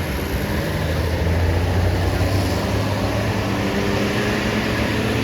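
Diesel engine of a tour bus running close by, growing louder in the middle as it pulls past and easing off near the end.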